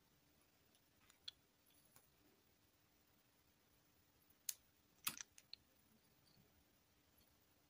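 Near silence with a few short plastic clicks and taps as small plastic toy figures are handled between the fingers, most of them bunched together about halfway through.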